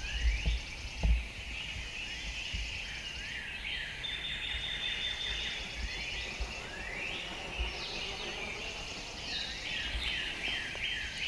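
Dawn chorus of many songbirds singing at once, a steady layer of overlapping chirps and short rising whistles, with a few low thumps in the first second or so.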